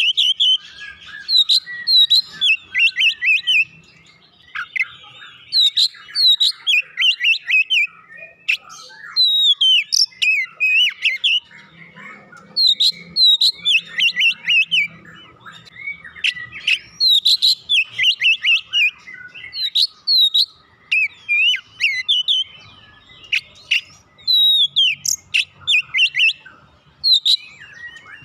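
Oriental magpie-robin (kacer) singing in full, persistent song: repeated phrases of quick, sweeping whistled notes with short pauses between them.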